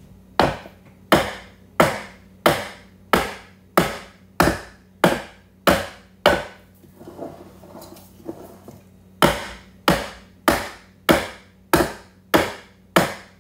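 Metal cake pan full of pound cake batter being banged down repeatedly, about one and a half knocks a second, to drive trapped air bubbles up out of the batter. There is a run of about ten knocks, a pause of about three seconds, then a second run.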